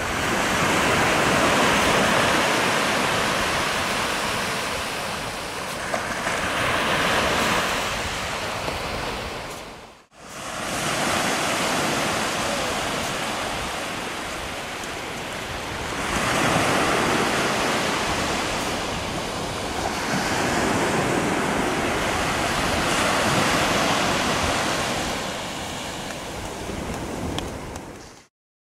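Sea surf breaking and washing up the shore, swelling and easing with each wave. The sound drops out for a moment about ten seconds in and cuts off suddenly near the end.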